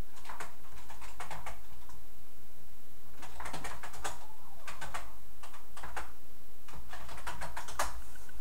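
Typing on a computer keyboard: several short runs of key clicks with pauses between them.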